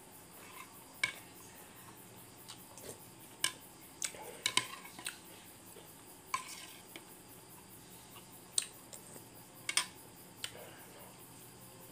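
A metal spoon clinking against the bowl in scattered sharp clicks, most of them about four to five seconds in and again near ten seconds. Crickets chirp steadily behind.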